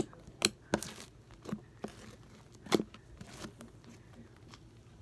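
Homemade fluffy slime being stretched, folded and squeezed by hand, giving sharp irregular clicks and pops, several in the first three seconds and fewer after.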